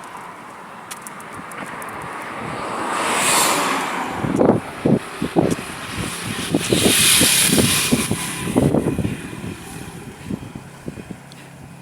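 Vehicles passing on a highway, two swelling then fading pass-bys about three and seven seconds in. Irregular low thumps of wind buffeting the microphone come in between them.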